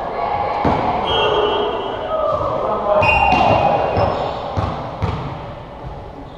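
Indoor volleyball rally: several sharp thuds of the ball being served and played, sneakers squeaking briefly on the hardwood gym floor, and players calling out.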